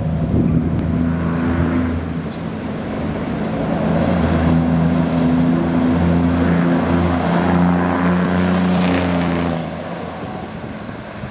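Scania R380 truck's six-cylinder diesel engine pulling at a steady pitch as the truck drives up and passes close by, a deep, even engine drone that grows louder and then drops away abruptly as it goes past, about nine and a half seconds in.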